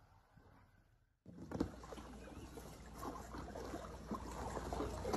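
After about a second of silence, water splashing and sloshing in a plastic tub as a dog climbs and paws around in it, growing slowly louder.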